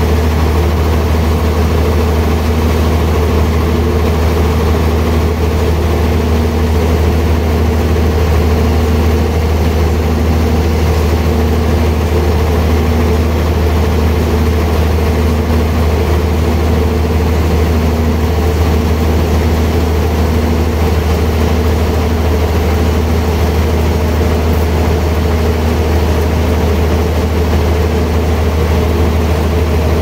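Large band sawmill running steadily as its blade saws through a big log: a loud, unchanging low hum with a steady higher drone over it.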